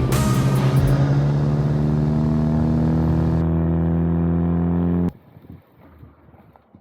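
Ford Focus ST engine and exhaust drone held at steady revs, a low even hum, cutting off suddenly about five seconds in.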